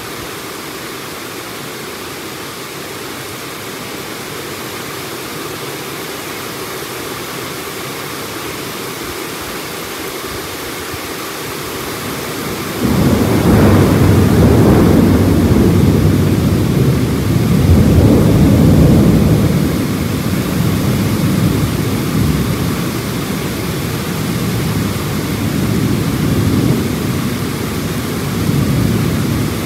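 Heavy rain falling steadily, then about 13 seconds in a long rumble of thunder starts suddenly and rolls on in several swells.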